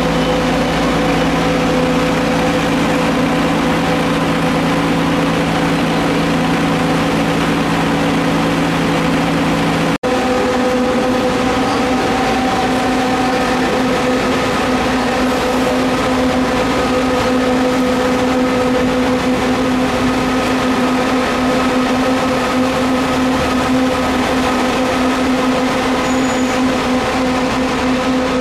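Nova Bus city transit bus running close by, a loud steady engine drone with a few held tones. There is a brief dropout about ten seconds in.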